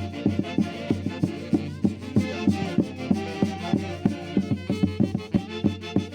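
Santiago folk music from Huancayo: an ensemble plays a melody over a quick, steady beat.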